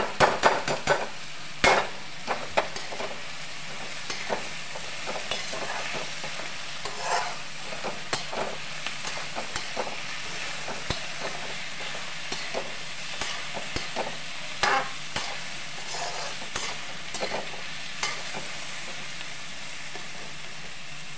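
Chopped vegetables sizzling in hot oil in a metal kadhai while a metal spatula scrapes and clinks against the pan as they are stir-fried. The clinking is busiest in the first couple of seconds, then comes in scattered strokes over the steady sizzle.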